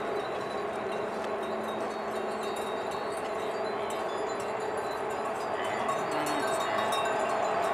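Diesel-hauled passenger train approaching: a steady hum of several tones that grows slowly louder.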